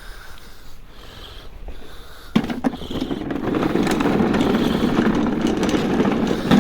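Cordless battery lawnmower's motor and blade starting up a little over two seconds in, spinning up over about a second, then running steadily.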